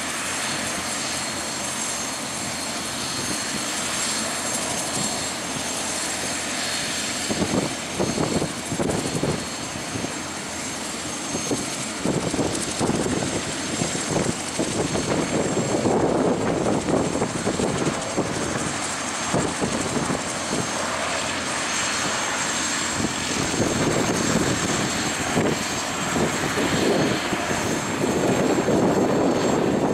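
Cessna 152's Lycoming O-235 four-cylinder piston engine and propeller running at take-off power as the plane lifts off and climbs out, growing somewhat louder after about twelve seconds. From about seven seconds in, irregular rumbling gusts of wind hit the microphone.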